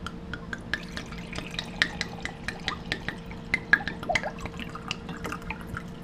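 Wine glugging out of a glass bottle into a wine glass, a fast run of gurgling pops, several a second, as the glass fills.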